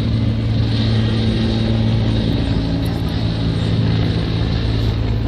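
Police helicopter flying overhead, its engine and rotors making a steady low hum.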